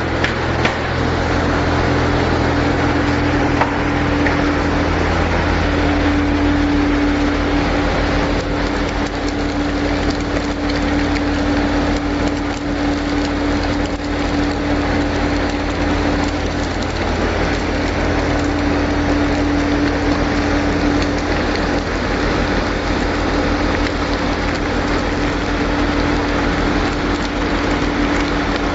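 Automatic continuous fryer line for small fish running: a steady machine hum under a dense crackling hiss, with a few knocks in the first second.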